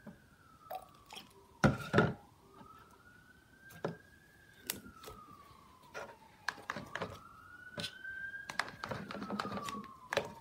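Slime being stirred in a container: scattered clicks and knocks, the loudest two close together about two seconds in. Behind it a faint siren slowly rises and falls, about two full cycles.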